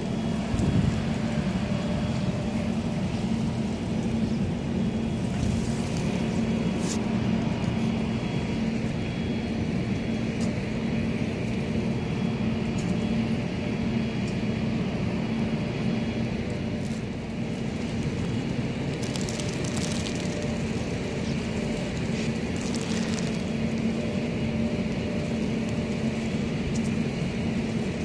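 A steady low mechanical hum over an even rumble, with a few faint short high sounds now and then.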